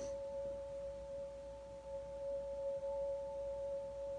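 A steady electronic drone of two held pure tones, one higher than the other, unchanging in pitch and level, over faint room noise.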